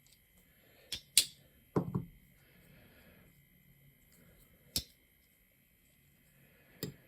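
Sharp clicks and light knocks of pocket knives being handled and set down on a surface, about six in all, with the loudest click about a second in.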